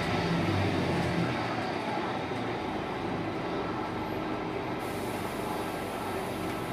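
Scania K280UB bus's five-cylinder 9.3-litre Scania DC9 diesel engine heard from inside the passenger cabin while the bus is moving. The low engine drone is strong for about the first second, then eases off to steadier, quieter running with road noise.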